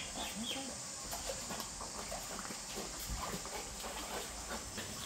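A dog swimming in a pool, paddling and splashing the water, with a few short sounds from the dog about half a second in.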